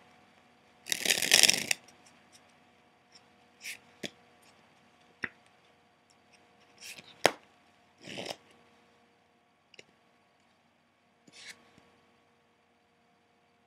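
A deck of playing cards handled in the hands during a card colour change sleight: a longer rustle of the cards about a second in, then scattered short snaps and brief rubs of the cards, the sharpest snap a little past seven seconds.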